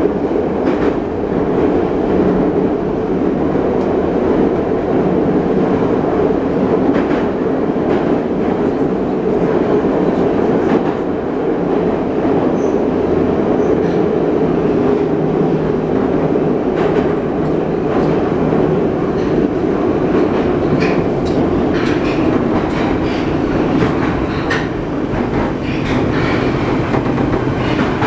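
Inside an 81-717.5 metro car running at speed through the tunnel: a steady, loud rumble of wheels and running gear, with scattered clicks from the track throughout, more of them in the second half.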